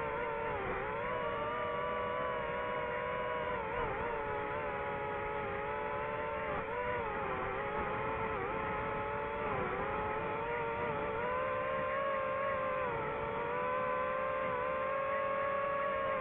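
DJI FPV drone's electric motors and propellers whining steadily, the pitch dipping and recovering several times.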